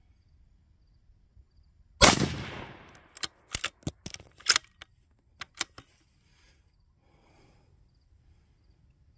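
A single AR-style rifle shot about two seconds in, its report echoing away over about a second. A few short, sharp clicks and clinks follow over the next three seconds.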